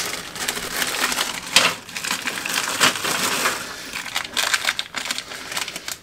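Small plastic bag of MC4 connectors crinkling and crackling as it is wrestled open, in irregular bursts, loudest about a second and a half in and again near three seconds.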